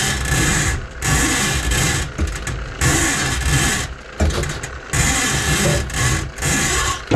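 Electric drum-type drain-cleaning machine running in bursts of about a second, its motor and spinning cable rattling in the drum, stopping and starting five or six times as the cable is worked into a grease-clogged kitchen sink drain line.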